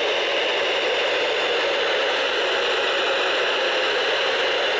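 Steady radio static: an even hiss from a radio receiver with no program coming through, the sign of a lost or weak signal.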